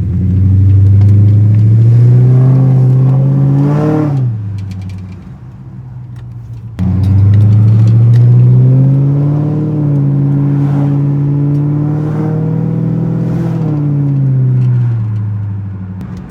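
Ford Crown Victoria's V8 exhaust pulling under acceleration, its pitch climbing for about four seconds and then dropping off sharply. After a quieter stretch it comes back in abruptly, climbs again, holds steady, and winds down near the end.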